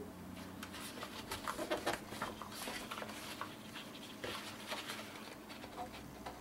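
Stiff paper and cardstock being handled: an accordion-folded paper hinge rustling and crinkling in a run of short crackles as it is pressed and creased onto a kraft card, loudest about one to three seconds in.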